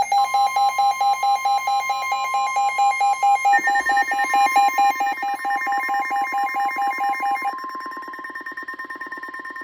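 Emergency alert attention signal: a fast-pulsing electronic tone, about five pulses a second, over a steady higher tone. A second, lower pulsing layer joins about three and a half seconds in, and the first pulsing tone stops a couple of seconds before the end. It announces a broadcast emergency alert, here a tornado warning.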